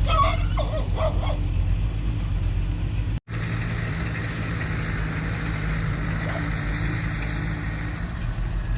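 Heavy diesel machinery engine running steadily with a deep rumble, and a dog barking several times in the first second and a half. The sound drops out for an instant about three seconds in.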